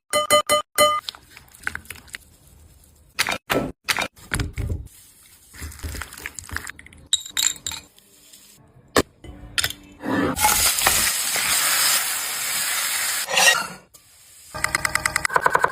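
Cooking sounds: utensils clinking and knocking against dishes and a pan for the first ten seconds. Then a loud sizzle of food going into hot oil lasts about three and a half seconds and cuts off, followed by a quick rhythmic pattern near the end.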